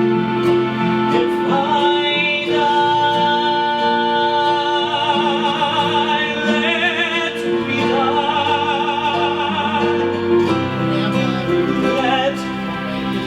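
Slow ballad music with sustained chords and a wavering melody line, without lyrics.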